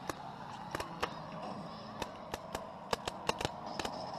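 Pyrotechnic charges going off in a quick, irregular string of sharp pops, about a dozen in four seconds, over a steady background hum.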